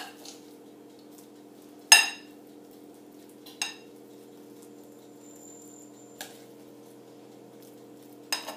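Metal spoon clinking against a ceramic bowl and a glass baking dish while mashed potato is spooned across: four sharp clinks with a brief ring, the loudest about two seconds in, over a steady low hum.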